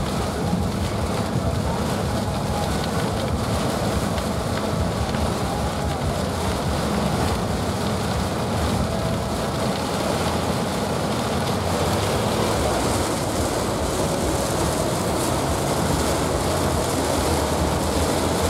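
Heavy thunderstorm rain on a vehicle, mixed with its road noise, heard from inside the cabin as a steady rushing.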